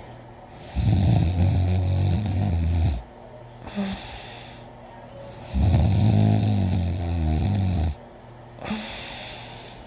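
A person snoring loud with heavy breathing: two long, low snores of about two seconds each, a few seconds apart, with brief quieter breath sounds between them.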